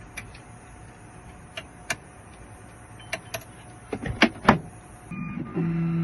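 Key-cutting machine being set up: light metal clicks and a couple of louder knocks as the key blank is handled and clamped, then the machine's electric motor starting near the end with a steady hum.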